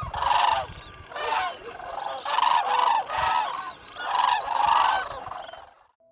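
A flock of large waterbirds giving loud honking calls, several birds overlapping, about one call a second, stopping shortly before the end.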